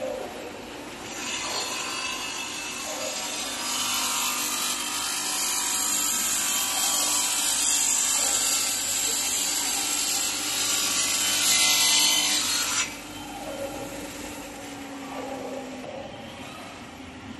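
Five-axis CNC bridge saw's circular blade cutting a wet stone slab: a loud, steady grinding hiss that starts about a second in, grows louder, and stops abruptly well before the end, leaving a quieter machine hum.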